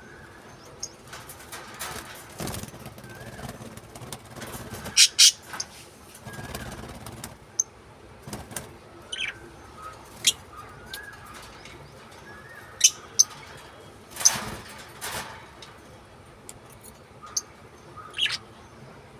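Pet lovebirds calling in short, sharp, high-pitched chirps and squeaks, scattered and irregular, loudest in a pair about five seconds in and a cluster about thirteen to fourteen seconds in. Brief bursts of wing flapping and rustling come between the calls.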